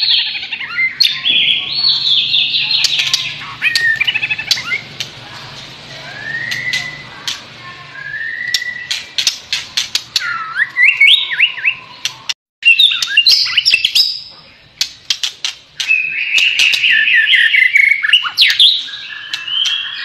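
White-rumped shama of the white-speckled 'blorok' type singing loudly: varied whistled phrases gliding up and down, broken by many sharp clicks. The sound cuts out for a moment about twelve seconds in.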